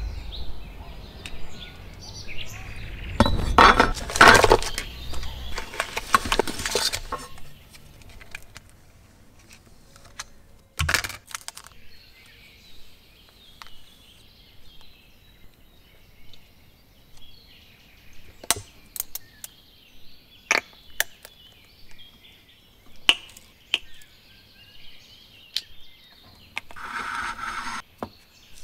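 Small objects being handled and set down on a desktop: scattered light clicks and taps, with a longer rustling stretch a few seconds in and a sharper knock about eleven seconds in.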